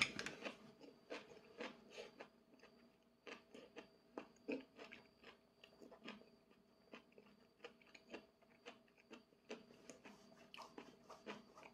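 Faint close-up chewing of a mouthful of udon noodles and cabbage: soft, irregular wet clicks and smacks from a closed mouth, over a faint steady hum.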